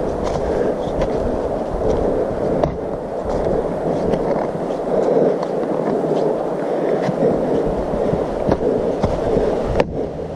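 Footsteps and trekking-pole taps on a dry, leaf-covered forest trail: scattered crunches and clicks over a steady rumbling rustle.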